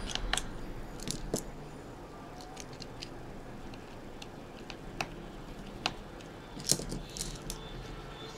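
Scattered light clicks and taps of small metal parts as hands handle an opened iPhone 6 Plus aluminium housing. The clicks come at irregular moments, with the loudest cluster about two-thirds of the way in.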